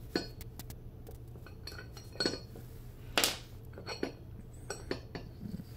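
Small metal crank tools and parts clinking as they are handled and set down on a hard floor: a handful of scattered clinks, the loudest a little after three seconds in.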